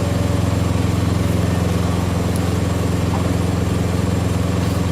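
Heavy diesel truck engine idling steadily, a low hum with a fast, even throb.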